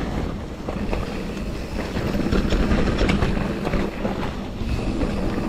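Mountain bike rolling fast down a dirt trail: a steady rush of tyre and riding noise with frequent clattering rattles and clicks as the bike goes over bumps.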